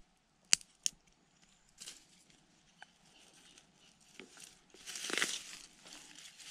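Wooden sticks of a homemade stick trap clicking against each other as they are handled and fitted together, with two sharp clicks in the first second and a few lighter ticks after. About five seconds in comes a burst of rustling and crinkling in dry grass.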